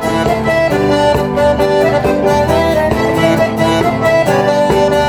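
Several button accordions playing a traditional folk tune together in an amateur group, held reedy notes moving from one to the next.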